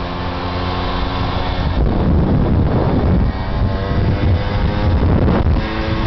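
Tomos LX moped's 49cc two-stroke single-cylinder engine running under way, with wind buffeting the microphone. Its steady note is covered by wind rush from about two seconds in and comes through clearly again near the end.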